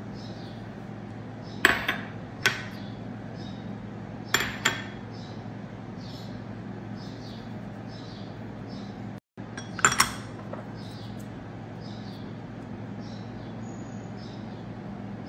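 A spoon clinking against small ceramic or glass bowls as dry ingredients are added to flour: several sharp clinks at irregular intervals, over a low steady hum.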